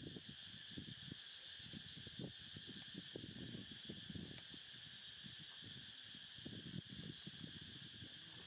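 Faint, steady insect chorus: an even, high, fast-pulsing trill, over low irregular rustling.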